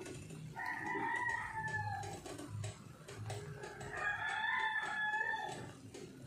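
Two long drawn-out animal calls, each about a second and a half, a couple of seconds apart, the second rising then falling slightly, over faint scattered ticking.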